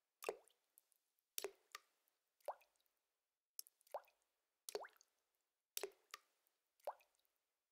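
Water drops falling from a tap into a tub of standing water, each a short plink that dies away quickly, at irregular intervals of about one to two a second.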